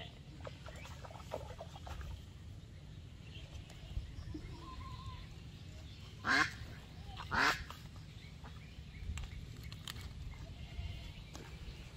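Two short, loud calls from a farm animal about a second apart, midway through, each sweeping upward, over a low steady rumble. Faint wet handling sounds come from a plucked chicken being gutted by hand.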